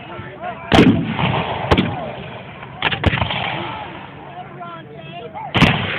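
Scattered black-powder gunfire: about five sharp reports at uneven spacing, the loudest about a second in and near the end, with voices calling in between.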